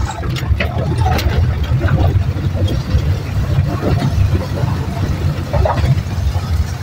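Jeep engine running with a steady low rumble, heard from inside the cab, with irregular knocks and rattles from the body as it drives.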